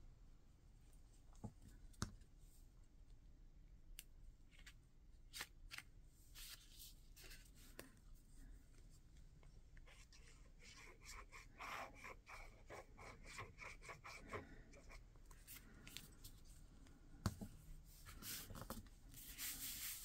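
Faint paper handling: envelopes being set in place and pressed and rubbed down onto a glued page, with scattered light taps and rustles. A longer run of quick scratchy rubbing comes about halfway through, and there are a couple of sharper taps.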